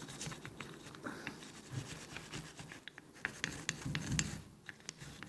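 Irregular scratching strokes and small clicks of a brush scrubbing carbon off the throttle body and butterfly of a Toyota Yaris, with a few soft knocks near the end.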